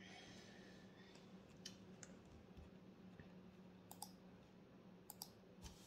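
Near silence: room tone with a faint steady hum and a few faint, short clicks scattered through it.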